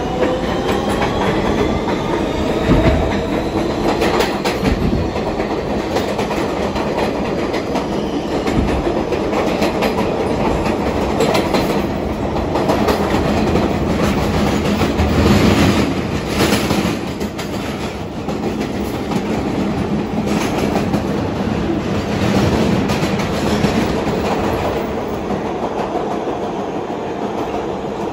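R160B Siemens subway car running: the traction motors whine, rising in pitch as the train picks up speed over the first few seconds. Then the car runs steadily through the tunnel with a loud rumble, and the wheels clatter over the track.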